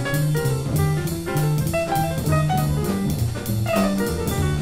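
Background jazz music: a drum kit keeps a steady beat under a bass line whose notes change a few times a second, with melodic instruments above.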